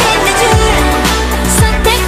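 Loud K-pop dance track with a deep, booming kick drum on the beat and a sung melody over it.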